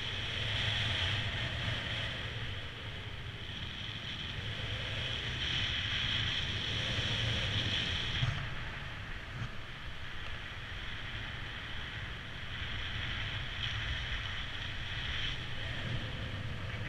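Wind rushing over the microphone of a paraglider pilot's camera in flight. It makes a steady low buffeting rumble with a hiss higher up that strengthens and eases a few times.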